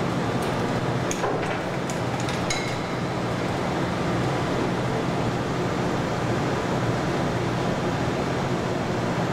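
Steady low hum and hiss of a large assembly hall's ventilation and machinery, with a few light metallic clicks in the first few seconds.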